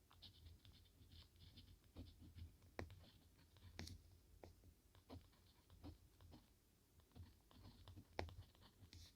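Soft paper rustling and crinkling from hands working journal papers, with small irregular taps and clicks, a few of them sharper.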